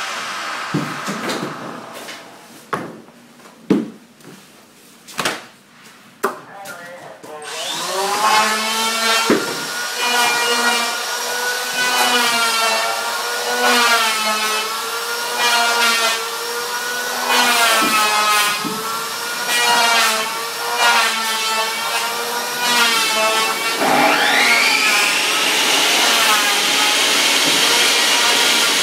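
Knocks of wooden boards being handled, then a Makita table saw starts about a quarter of the way in and cuts reclaimed floorboards. Its pitch dips and wavers under the load of the cut, then rises back to full speed near the end.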